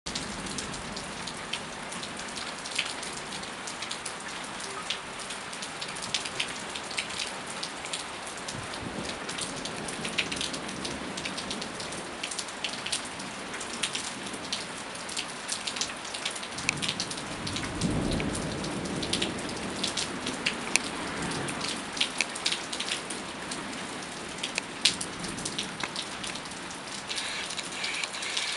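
Steady rain falling, with many sharp drops striking close by. A low rumble of thunder swells up a little past halfway through and fades over several seconds.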